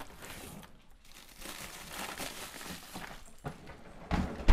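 Plastic bag of frozen bread crinkling as it is handled, then a single sharp thump near the end.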